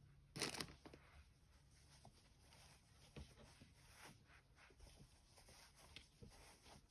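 Faint rustling of polyester fibrefill as handfuls are pushed into a crocheted plush head, with one brief louder rustle about half a second in.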